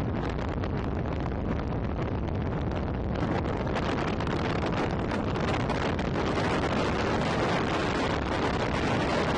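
Steady rush of wind and road noise from a car moving at speed, the wind buffeting the microphone held by the open window.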